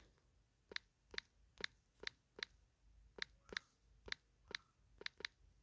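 Key presses typing a password on a smartphone's on-screen keyboard: a run of faint, sharp clicks, about two a second.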